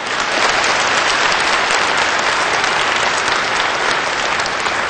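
A large audience applauding: steady clapping that has just swelled up and eases slightly near the end.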